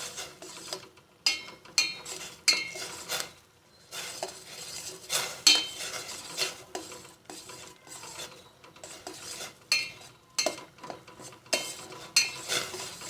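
Spoon stirring a pot of herbal decoction as it cooks, scraping and clinking against the pot with ringing strikes at uneven intervals.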